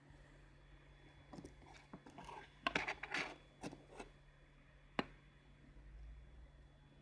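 Faint scattered clicks, rubs and scrapes of small tools and phone parts being handled on a repair bench, with one sharp click about five seconds in, over a steady low hum.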